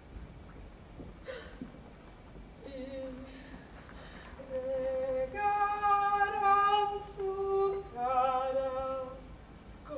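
A woman singing a slow tune alone, starting a few seconds in, in long held notes that are loudest in the middle, with a wavering note near the end.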